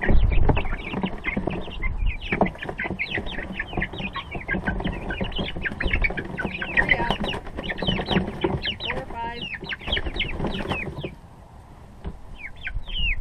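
A flock of young Rhode Island Red chicks peeping rapidly and continuously, many high, short, falling peeps overlapping, with a few low bumps near the start; the peeping thins out shortly before the end, with a few more calls after.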